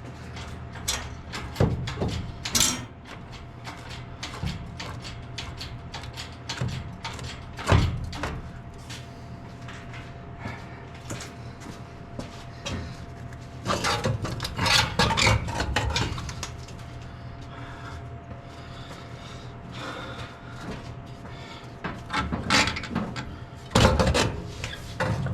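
Hand tools working on a truck engine during teardown: scattered metal clinks and knocks, with spells of scraping and rattling about halfway through and near the end. A steady low hum runs underneath.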